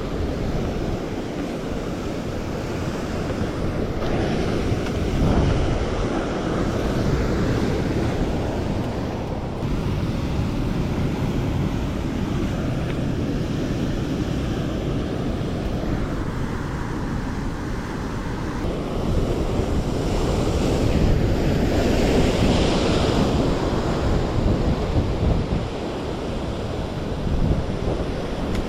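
Rough sea surf breaking and washing against the shore, with wind buffeting the microphone. The surf swells louder about five seconds in and again around twenty-one seconds.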